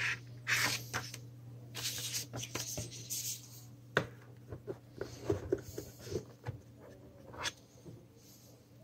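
Unboxing handling sounds: paper rustling as the quick-start leaflet is handled, then light knocks and taps as the WigiDash touch panel is gripped and lifted out of its box. A steady low hum runs underneath.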